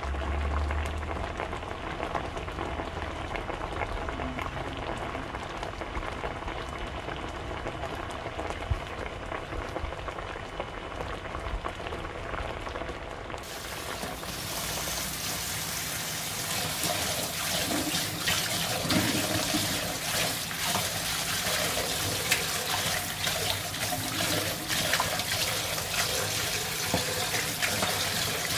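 Kitchen tap running into a steel bowl in a sink, splashing as leafy greens are swished and rinsed by hand. The water starts suddenly about halfway through, after a quieter stretch.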